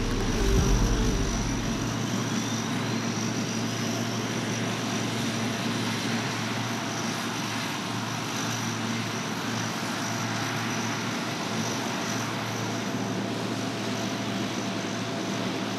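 C-130 Hercules' four Allison T56 turboprop engines running with propellers turning as the aircraft sits and taxis: a steady propeller and turbine noise with a thin whine, and a faint whine rising in pitch about two to four seconds in.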